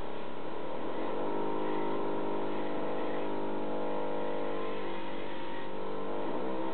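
Small electric motor of a Panic Mouse 360 cat toy whirring as it swings its wand around, the pitch rising over the first second or so, holding steady, then dipping near the end as it changes speed.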